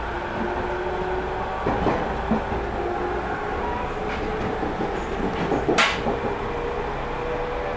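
Running noise inside a JR 209 series electric train motor car with MT73 traction motors: a steady low rumble under a motor and inverter whine that rises slowly in pitch as the train gathers speed. A knock sounds about two seconds in and a sharp clatter about six seconds in.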